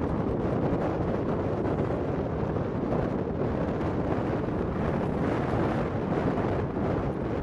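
Wind blowing across the microphone: a steady, dense rushing noise with small gusty swells.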